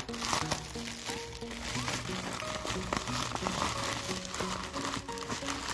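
Plastic poly mailer bag crinkling as hands handle and open it, loudest right at the start and again about four seconds in, over background music with a simple melody of short notes.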